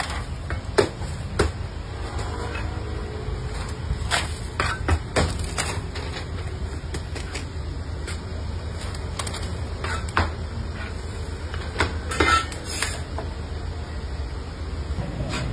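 Scattered light knocks and clicks of plastic food trays and lids being handled against a metal work counter, in clusters a few seconds apart, over a steady low hum.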